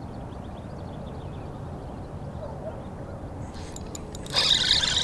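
Low steady wind-and-water noise, then about four seconds in a loud rushing swish as the spinning rod is swept back hard to set the hook on a bite. Rapid ticking from the reel comes before and after it.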